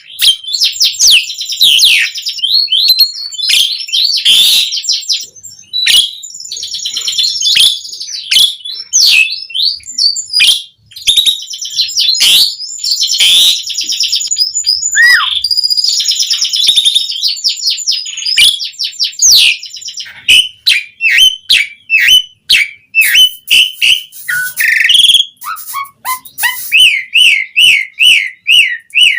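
Asian pied starling (jalak suren) singing loudly and without pause: a dense, varied stream of whistles, chatters and sharp clicks. Near the end it settles into a run of repeated looping whistled notes, about three a second.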